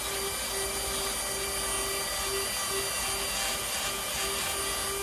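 High-speed electric power tool running steadily under load, a constant whine whose strength flutters as the tool bears on a Micarta knife scale.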